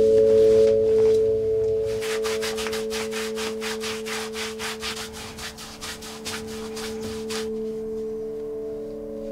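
A sustained drone of several steady held tones runs throughout. Over it, brisk rhythmic rubbing or scrubbing strokes, about five a second, start about two seconds in and stop about seven and a half seconds in.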